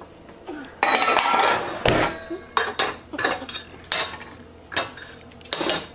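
Stainless steel pots and pans clattering and ringing as a saucepan is pulled out of a pan drawer, then several sharp metal clanks as the pot is handled and set down on the gas stove's grate.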